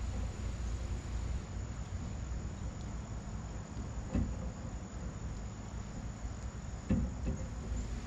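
Crickets trilling steadily, a thin high continuous tone, over a low background rumble, with two soft knocks about four and seven seconds in.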